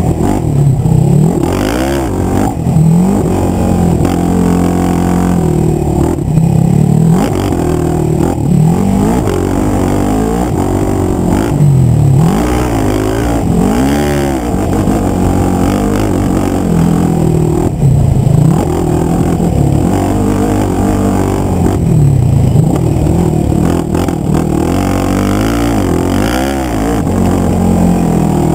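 Stock 2006 Yamaha YFZ450 ATV's single-cylinder four-stroke engine revving hard and dropping back again and again, its pitch rising and falling every second or two as the throttle is worked around a motocross track, heard close from the rider's helmet.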